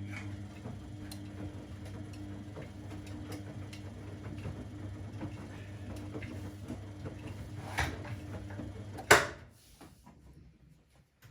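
A laundry appliance's motor humming steadily with light clicks, then stopping abruptly about nine seconds in with a loud clunk, after a smaller knock shortly before.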